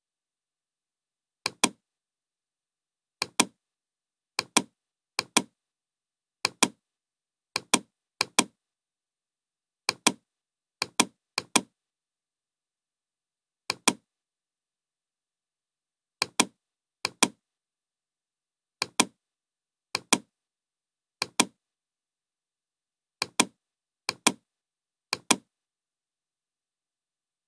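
Computer mouse clicks, each a quick double click of press and release, about eighteen of them at uneven intervals with silence between.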